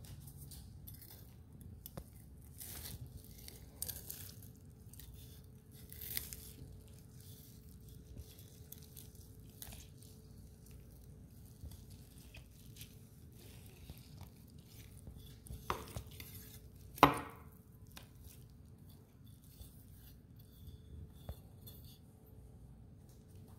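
Knife slicing through a crisp-crusted roast pork on a wooden cutting board: scattered small crunches, scrapes and clicks of the blade. One sharp knock about two-thirds of the way through is the loudest sound, with a smaller one just before it.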